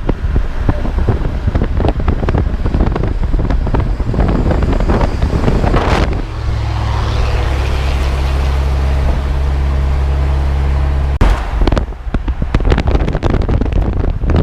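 Moving truck driving, heard from the cab, with wind buffeting the microphone. From about six to eleven seconds a steady low drone takes over from the buffeting. The driver says the truck's driveshaft cross joint is worn.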